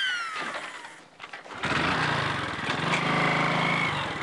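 Motorcycle engine running steadily, setting in about one and a half seconds in, after a falling whistle-like tone fades away.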